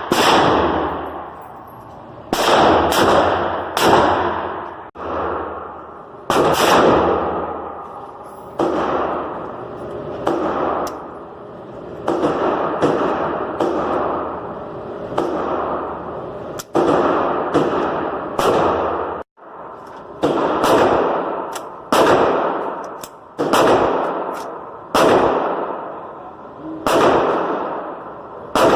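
Semi-automatic rifle fired as single shots at an irregular pace, about two dozen in all, one every half second to two seconds. Each sharp crack trails off in a long echo.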